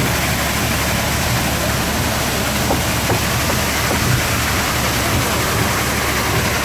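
Water rushing steadily down the chute and splashing through the turning horizontal water wheel (kvernkall) beneath a small grain mill, with spray falling onto the rocks.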